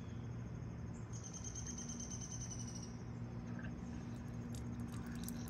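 Keurig single-serve coffee maker running as a brew starts: a steady low hum, with a high thin whine for about two seconds starting about a second in.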